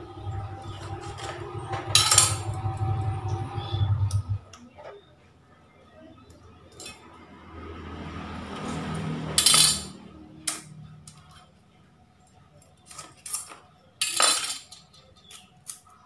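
Thin sticks being cut and trimmed by hand: sharp snaps and clicks, the loudest about two, nine and a half and fourteen seconds in. A low hum underneath stops about four seconds in.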